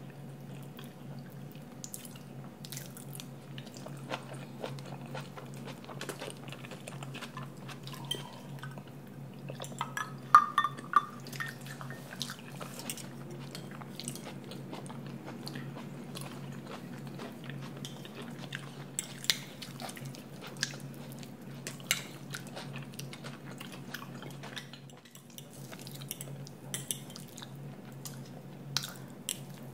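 A metal fork and spoon clink and scrape against a plate while someone eats, with scattered short clicks. The loudest is a brief ringing clink about ten seconds in. A low steady hum runs underneath.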